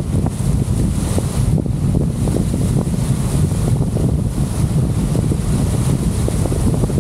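Storm wind buffeting the microphone: a loud, unsteady rumble with crackles, over the rush of choppy, wind-driven water.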